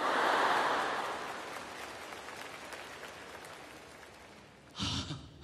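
Large audience applauding. The applause starts at once, peaks within the first second and dies away over about four seconds.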